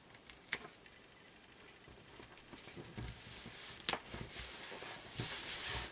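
Hands pressing and rubbing a glued paper panel flat onto a card: a dry, papery rustling that builds through the second half, with a couple of sharp taps.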